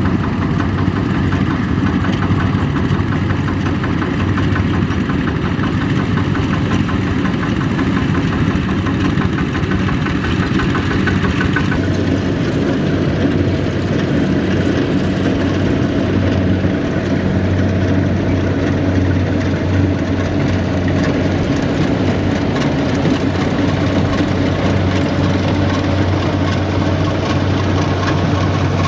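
Power tiller's single-cylinder diesel engine running steadily at idle, with a sudden change in the sound about twelve seconds in.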